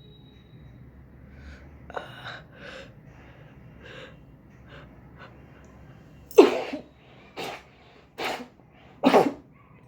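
A person sneezing: a few quieter short breaths, then four loud sneezes about a second apart in the second half.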